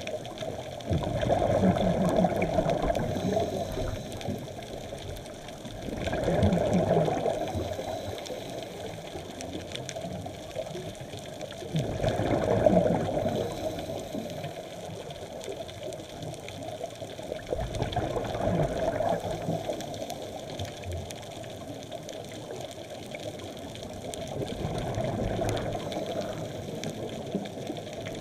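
A scuba diver's exhaled bubbles rushing out of the regulator, heard underwater. The bubbling swells five times, roughly every six seconds, each burst lasting a second or two, over a steady underwater hiss.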